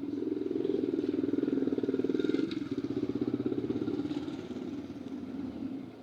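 Small engine, likely a motorcycle's, running with a fast pulsing beat, loud at first with a brief dip about two and a half seconds in, then fading away over the last two seconds.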